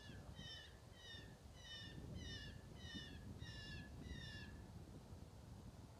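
A faint run of about ten short, falling, squealing calls, a little over two a second, stopping near the end.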